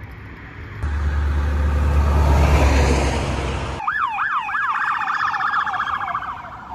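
Road noise from passing traffic: a low rumble that swells and fades. About four seconds in, a sheriff's patrol SUV siren takes over, with three quick rising-and-falling wails and then a fast warble that fades as the vehicle goes by.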